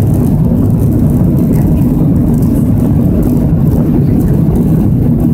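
Steady engine noise heard inside the cabin of a Boeing 737-700, its CFM56-7B turbofans running at high power as the jet rolls down the runway for takeoff. The noise is loud and even, a deep rumble with no change in pitch.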